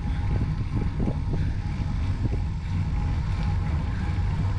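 Wind rumbling on a microphone carried on a moving bicycle, with road noise underneath and a faint steady whine.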